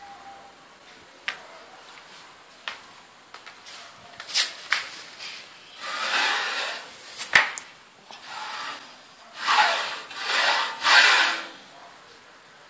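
A hand rubbing and sliding along the aluminium extrusion rails of a homemade CNC frame: three longer scraping rubs in the second half. Several sharp clicks and taps come between them, the loudest about seven seconds in.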